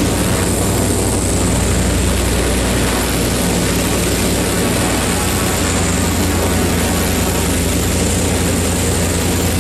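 Zeppelin NT airship's propeller engines running steadily and loudly as it comes in to land, a low even engine hum under a wide rushing noise.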